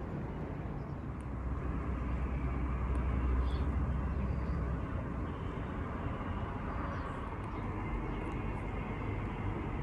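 Outdoor ambience: a steady low rumble that swells between about one and a half and five seconds in, with faint short high chirps now and then.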